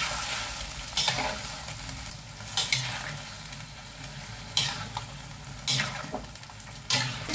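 A metal spatula scrapes and clinks against a stainless steel wok as winter melon and fish are stir-fried in sauce, over a steady sizzle. Sharp metal clinks come every second or so.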